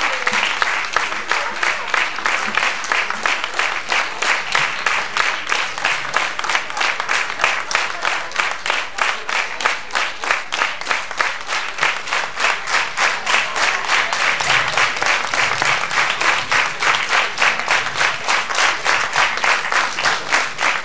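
A large audience applauding, clapping together in a steady rhythm of about three claps a second.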